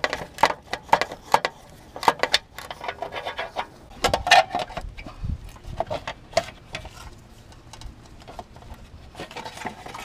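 Hand ratchet clicking in short strokes on a bolt, then sparser clinks and knocks of tools and metal parts.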